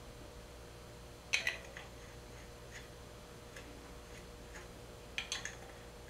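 Small metallic clicks and clinks as the water pump pulley bolts are fitted, with two sharper clusters about a second in and again near the end and a few faint ticks between, over a faint steady hum.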